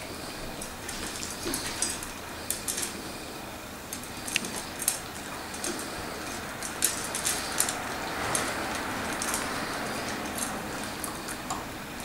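Two puppies eating dry kibble from a stainless steel bowl: irregular clinks of food and teeth against the metal, mixed with crunching.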